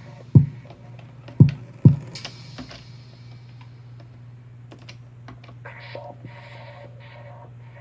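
Match rubbed against the hard striking surface of a matchbox, heard as irregular sharp clicks and crackle. Three deep thumps, falling in pitch, come in the first two seconds, and a steady low hum lies underneath.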